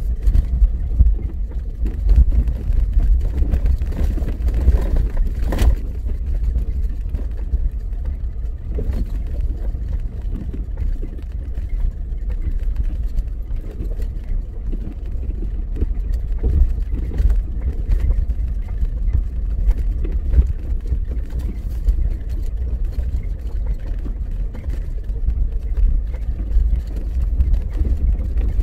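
A vehicle driving on an unpaved dirt road: a steady low rumble from the engine and tyres, with frequent small knocks and rattles from the rough surface.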